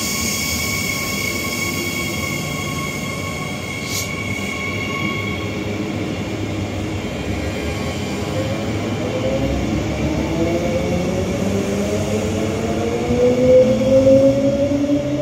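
Queensland Rail electric multiple-unit train pulling out along the platform, its traction motors whining in several tones that climb steadily in pitch and grow louder as the train gathers speed, from about eight seconds in. A single sharp click sounds about four seconds in.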